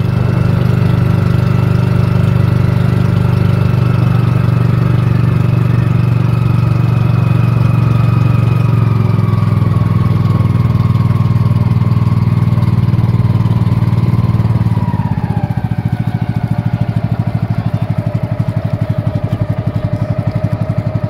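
Boat engine of a motorized outrigger boat running steadily, then throttling back: its pitch sinks gradually and drops more sharply about two-thirds through, settling into a slower, pulsing idle as the boat comes in to the landing.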